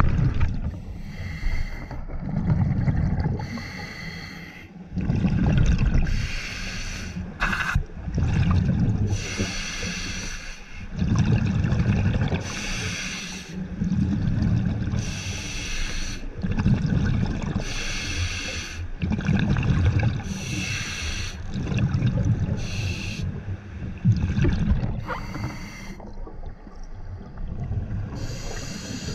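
Scuba diver breathing through a regulator underwater: hissing inhalations alternate with low rumbling bursts of exhaled bubbles, one breath about every two to three seconds.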